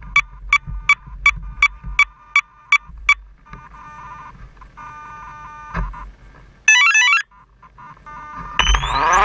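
Startup beeps from the electric Align T-Rex 700 helicopter's speed controller as it arms: a run of short beeps, about three a second, then longer tone sequences and a quick rising chirp. Near the end the motor begins to spool up with a rising whine.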